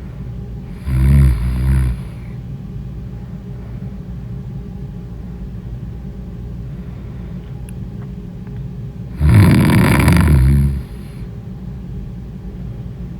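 Someone in deep sleep snoring: two loud snores, one about a second in and one about nine seconds in, each lasting a second or more, over a steady low hum.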